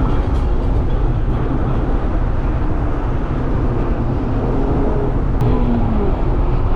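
Mazda MX-5 roadster on the move: a steady, heavy low rumble of road and wind noise, with faint engine tones drifting slowly in pitch.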